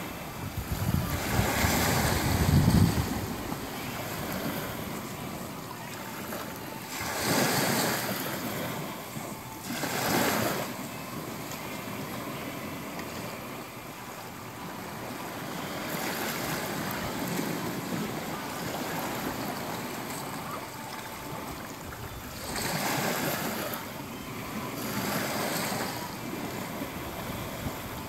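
Small waves washing up onto a sandy beach and around rocks at the water's edge, the surf swelling and falling back every few seconds, loudest near the start.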